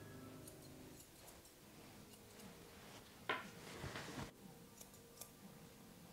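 Grooming shears snipping faintly while trimming the long hair around a dog's feet, with one louder sharp snip about three seconds in.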